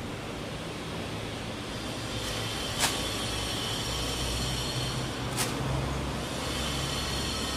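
Steady low outdoor background rumble, broken by two sharp clicks about three seconds and five and a half seconds in.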